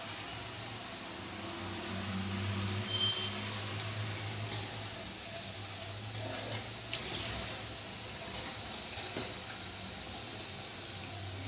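A hand squishing and stirring wet rice batter in a steel bowl, soft wet squelching, over a steady low hum and hiss.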